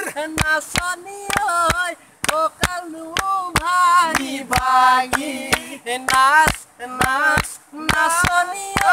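A man singing a Bihu folk song in a wavering, ornamented voice, with a quick steady beat of hand claps and two river stones knocked together.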